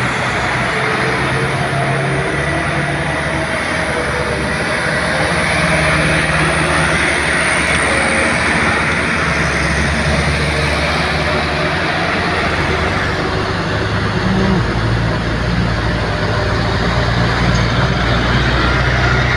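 Diesel engines of a line of trucks, some loaded with sugarcane, running steadily as they pass one after another on a hairpin bend. About two-thirds of the way through, the engine note changes as the next truck comes close.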